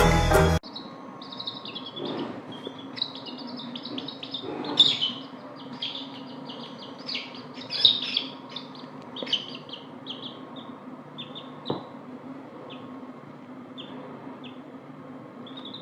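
Chicks peeping: many short, high cheeps, coming thick and fast for several seconds and then thinning out to single cheeps. Background music cuts off about half a second in.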